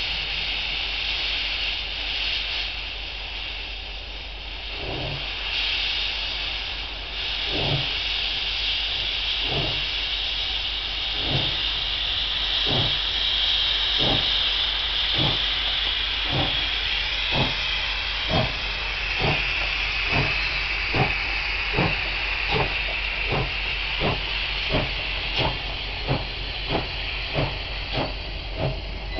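South African Railways class 19D steam locomotive starting a train: a steady hiss of steam from the open cylinder drain cocks, with exhaust chuffs starting about five seconds in, slow at first and quickening steadily as the train gathers speed.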